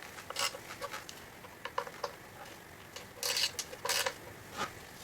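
Sharp metal clicks and a few short scrapes from a small 1/4 inch wrench with a T15 Torx bit, working tight screws out of an ECU's metal case.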